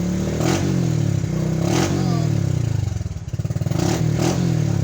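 Motorcycle engine running after an oil and filter change. Its low note wavers up and down and dips briefly about three seconds in.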